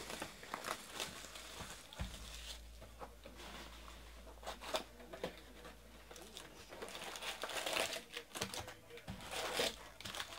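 Plastic shrink wrap crinkling and tearing as a sealed trading-card box is unwrapped, then the cardboard lid opened and foil card packs rustling as they are pulled out. The crackling is busiest near the end.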